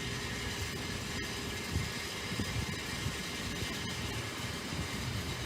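Wind buffeting the microphone in uneven low gusts over a steady background rumble.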